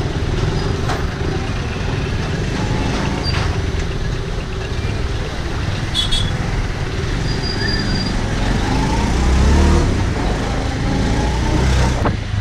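Motorcycle engine running as the bike rides through town traffic, its note climbing about eight seconds in, with low wind rumble on the microphone and surrounding street traffic.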